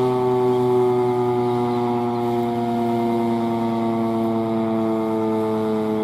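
Federal Signal Model 7 outdoor warning siren sounding its steady Alert tone during a test, a loud sustained wail whose pitch sinks slowly over the few seconds.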